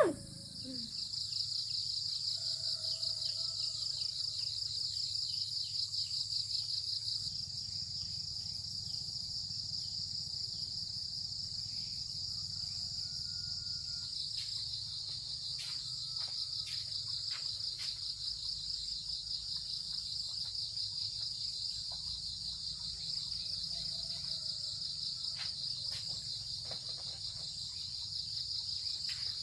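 Steady, high-pitched insect chorus with a fast pulsing shimmer, over a low steady hum. A few faint clicks and short faint chirps sound through it.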